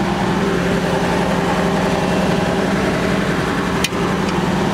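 Claas forage chopper's engine running steadily, with one sharp click near the end.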